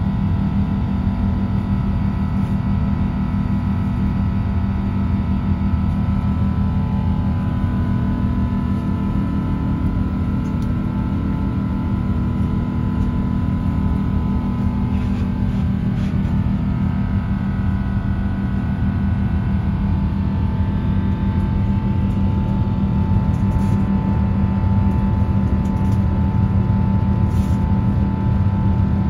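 Steady cabin drone of an Airbus A350-1000 climbing out after takeoff, its Rolls-Royce Trent XWB-97 engines giving a low rumble with a few steady higher tones over it.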